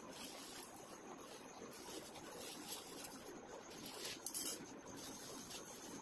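Thin plastic packaging crinkling and rustling as it is handled and pulled off a hand mixer and its beaters, with a few sharper crackles about three and four seconds in.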